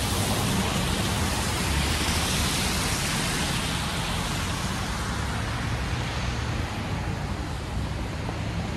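Steady hiss and rumble of car traffic on a wet, slushy road, mixed with wind rumbling on the microphone, easing slightly near the end.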